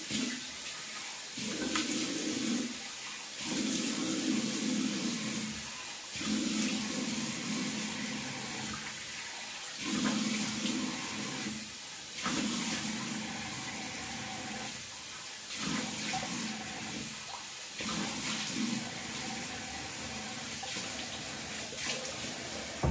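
Cold water running from a bathroom tap into a sink, with handfuls splashed onto the face over and over, a louder splash about every two seconds.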